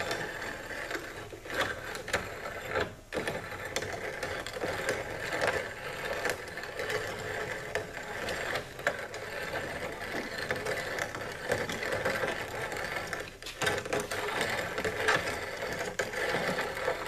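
Grain grinder running, grinding pressed black powder pucks into granules: a continuous mechanical grinding with irregular crunching clicks, briefly easing off about three seconds in and again near the end.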